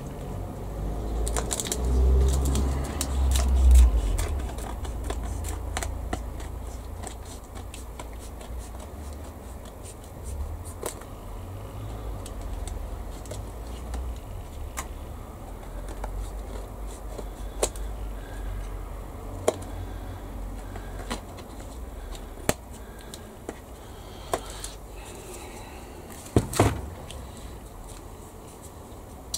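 Handling and cutting sounds at a modelling bench as the end is cut off a model display base: scattered sharp clicks and taps, with a low rumble and louder handling in the first few seconds and a few sharp knocks near the end.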